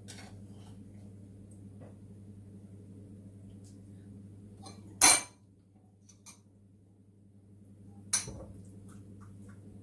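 A serving spoon clinking against glass and ceramic dishes as fruit salad is spooned out: a few scattered clinks, the loudest about five seconds in and another about eight seconds in, over a low steady hum.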